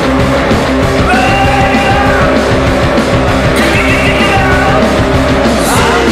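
Loud rock music, with held, bending melody notes over a dense band.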